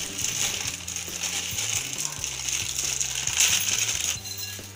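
Crinkling plastic instant-noodle packet as crushed dry Maggi noodles are shaken out of it, the small dry pieces falling into a glass bowl. The crackle stops about four seconds in.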